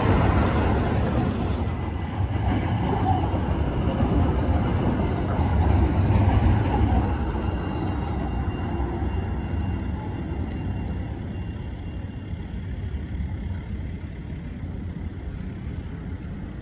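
Low-floor articulated trams running on street track amid passing car traffic: a steady low rumble, loudest at first and slowly fading after about seven seconds, with a faint thin high whine above it.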